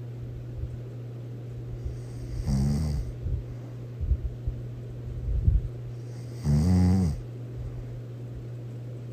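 Loud snoring: two snores about four seconds apart, the second longer and louder, over a steady low hum.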